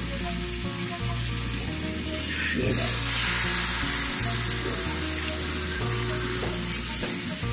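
Batter-coated pumpkin flowers frying in oil on a hot tawa, a steady sizzle that grows louder about three seconds in. Background music with a steady bass line plays underneath.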